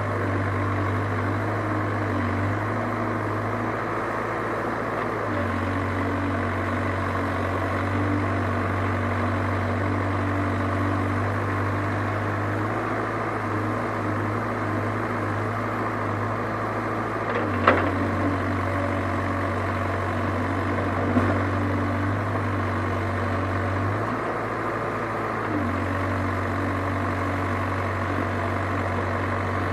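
Diesel engines of an excavator and tractor running steadily with a low hum. There is one sharp metallic clank a little over halfway through and a fainter knock a few seconds later.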